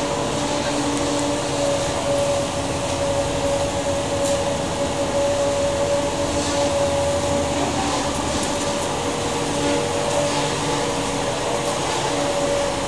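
A steady machine hum carrying a constant held tone, with a lower tone that fades in and out, over a noisy wash.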